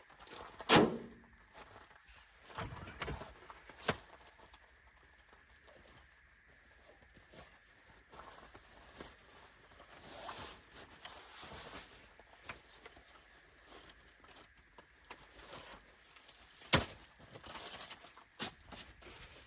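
A steady high-pitched insect drone, with a few sharp knocks and rustling handling noises in between.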